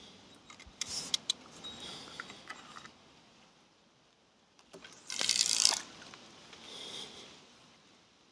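Close handling noise: a few sharp clicks about a second in, then a brief, loud scraping rustle a little past the middle and a fainter one near the end, as the rod, reel and phone are moved.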